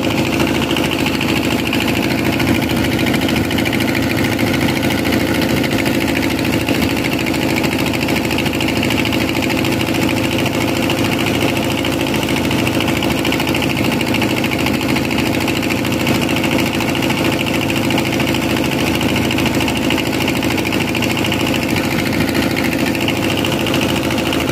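Fishing boat's engine running steadily as the boat moves along on calm water: an even hum with a constant rushing noise over it.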